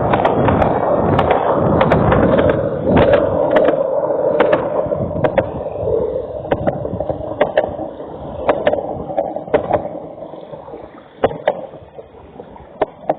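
Rushing noise of riding through heavy rain, with many sharp ticks scattered through it. It grows quieter over the second half.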